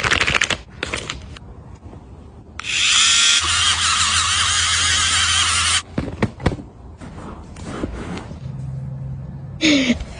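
Plastic sheet-mask packet rustling as it is torn open. About two and a half seconds in, a loud steady electric buzz runs for about three seconds, like a small motor. Brief crinkling follows.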